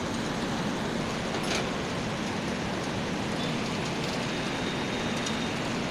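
Steady rushing background noise with a low hum, with a faint click about a second and a half in.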